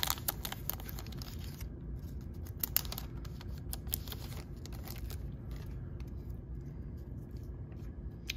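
Foil wrapper of a baseball card pack being torn open and crinkled by hand. The crackling is densest in the first second or two, then thins to scattered crackles.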